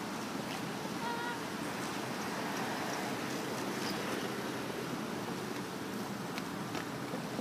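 Steady rushing outdoor street background noise, with a brief faint chirp about a second in and a few light taps near the end.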